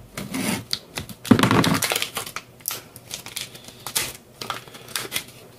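Plastic packaging being crinkled and opened to unpack a small exhaust manifold, with irregular light clicks of small parts and tools handled on a workbench. The loudest rustle comes about a second in.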